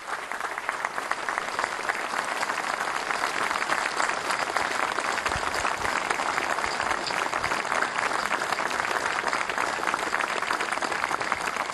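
Large crowd applauding: a sustained round of clapping that breaks out suddenly and keeps up evenly.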